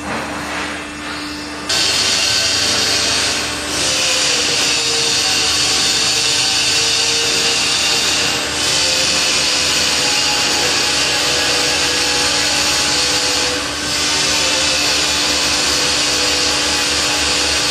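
A-Ward MiTilt container-tipping unloader at work with a container raised at a steep tilt: a loud, steady hissing rush starts abruptly about two seconds in. It dips briefly three times, at intervals of about five seconds.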